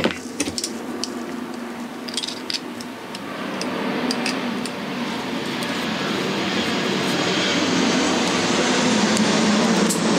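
A steady rushing air noise that swells from about three seconds in and becomes the loudest sound. In the first three seconds there are a few sharp clicks from side cutters snipping the plastic housing of a QS8 connector.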